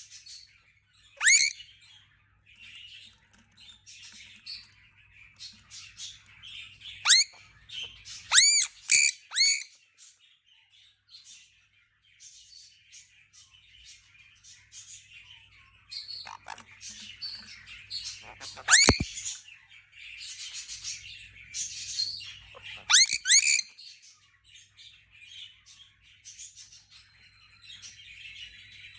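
Birds calling: a handful of loud, sharply falling calls, some in quick runs of two or three, among frequent softer chirps.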